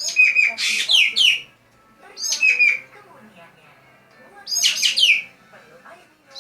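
Green magpie (ekek geling) calling in three loud bursts, each a quick run of sharp notes ending in falling whistles.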